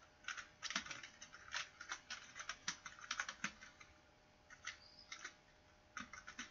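Computer keyboard keys clicking faintly as commands are typed: a quick, uneven run of keystrokes, a short pause a little past the middle, then a few more scattered keystrokes.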